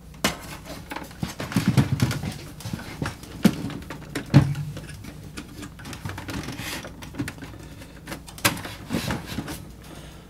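Plastic clicks, scrapes and knocks from the cabinet of a JVC PC-X560 boombox as its detachable speaker is worked loose from its slide mount, with one sharp knock about four seconds in.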